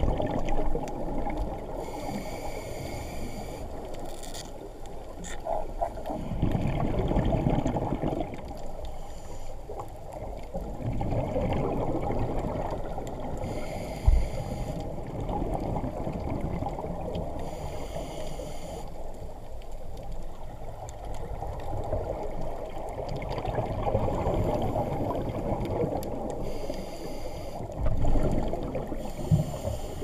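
Scuba regulator breathing heard underwater: short hissing inhalations alternate with longer, rumbling bursts of exhaled bubbles, over a steady muffled water wash. There is a single sharp knock about halfway through.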